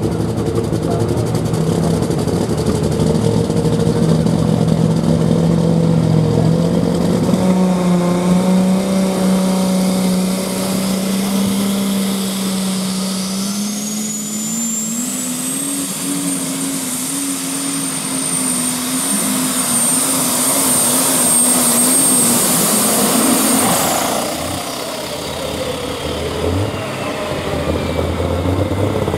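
Super/pro stock pulling tractor's turbocharged engine under full load on a pull. The engine note climbs steadily while a high turbo whine rises and then holds, until both cut off sharply about five seconds before the end. A second tractor engine picks up near the end.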